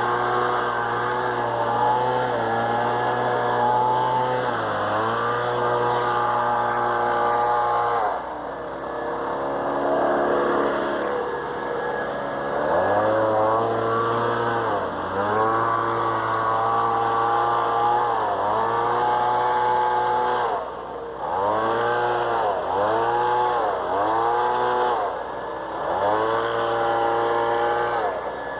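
A small engine running hard, its speed dropping and climbing back again and again, with a few quick dips close together about two thirds of the way in.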